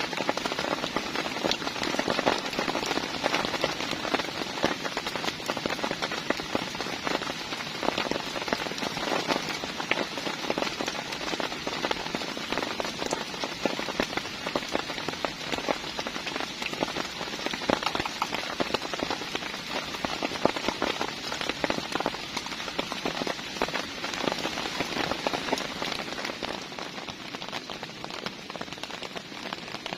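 Heavy rain falling steadily, a dense patter of countless drops hitting surfaces, easing slightly near the end.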